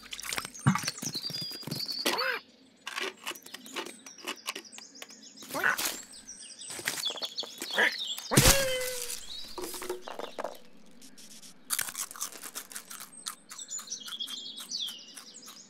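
Cartoon sound effects for a garden scene: birds chirping in short bursts over a run of quick clicks and rustles. A heavy thump comes about eight seconds in, followed by a short falling tone.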